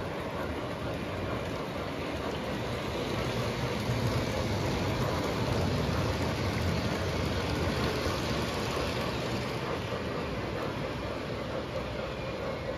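O gauge model freight cars rolling past on three-rail track: a steady rumble of metal wheels on the rails, growing louder a few seconds in and easing off near the end.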